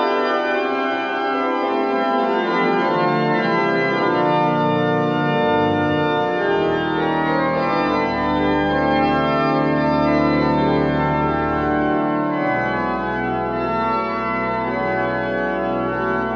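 Church pipe organ playing sustained chords after the dismissal, as a closing voluntary. Deep pedal bass notes come in a few seconds in.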